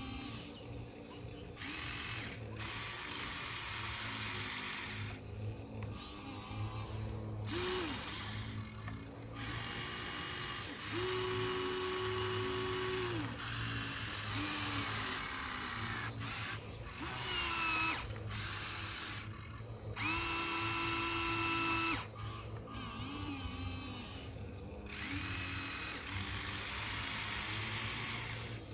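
Huina 1593 RC excavator's small electric motors and gearing whining in start-stop runs of one to three seconds as the boom, arm and bucket move. Some runs hold a steady pitch and others glide up and down.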